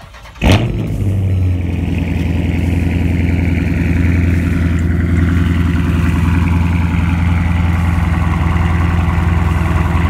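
Dodge Charger Scat Pack's 392 HEMI V8, with a muffler-delete exhaust, cold-starting. There is a loud bark at the start about half a second in, then it settles into a steady idle.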